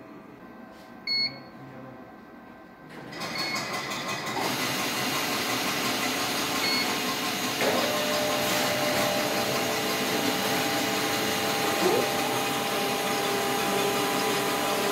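Horizon SPF-20A booklet maker in its automatic setup. A short electronic beep comes about a second in, then at about three seconds the machine's motors start and run steadily. Short beeps and a steady whine join about halfway through.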